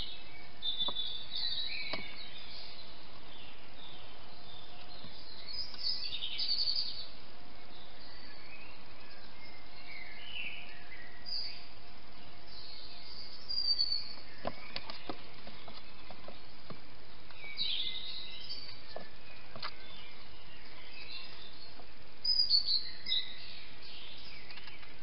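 Several songbirds singing and chirping in the early-morning dawn chorus, in short scattered phrases over a steady hiss, with a few faint clicks.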